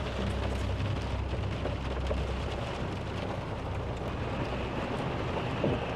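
Heavy rain falling on a Nissan NV200 camper van, heard from inside the cabin as a steady hiss, with the van's engine running as a steady low hum underneath.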